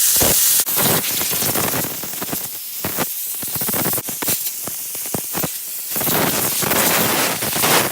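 Air blower blasting loose rust and grit off an old wrench: a loud rushing hiss of air that rises and falls in strength, with several brief dips, and cuts off at the end.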